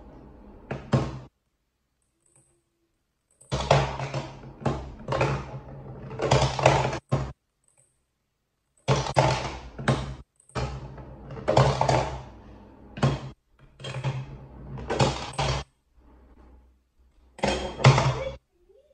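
Plastic balls dropped into a plastic toy, rolling and knocking through its hollow body in several runs of a few seconds each, with a few sharp clicks.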